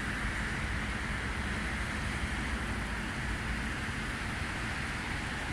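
Steady outdoor noise of wind rumbling on the microphone over a wash of city road traffic.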